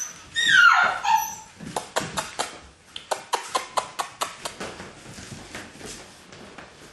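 A puppy gives one high yelping cry that slides steeply down in pitch, lasting about a second. It is followed by a quick run of sharp clicks, claws skittering on a tile floor, which tail off after a few seconds.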